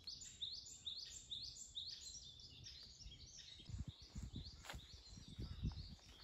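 Wild bird singing in woodland: a run of repeated high chirping notes, about two a second, clearest in the first few seconds and fainter after. A few soft low thumps come in the second half.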